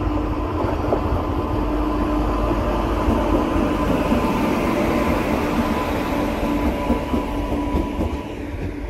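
Express passenger train rolling in alongside the platform as it draws to a stop: a steady rumble of wheels on the rails with a faint steady hum, easing a little near the end.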